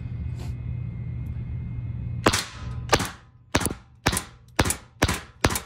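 Glock G44 .22LR pistol fired rapidly through a Nelson Precision Little Spoon silencer with subsonic Winchester Super Suppressed ammunition: seven suppressed shots about half a second apart, starting a little over two seconds in. A steady low hum runs before the shooting starts.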